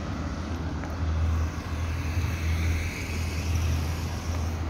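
Road traffic: cars passing on a city street, a steady low rumble with a swell of tyre noise near the middle.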